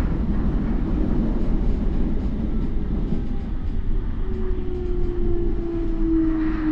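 Onboard running sound of a Toei 10-300 series train with a Mitsubishi IGBT inverter: a steady rumble of wheels and running gear. From about four seconds in, a single motor tone slowly falls in pitch. The unit is one known for an unusual running noise.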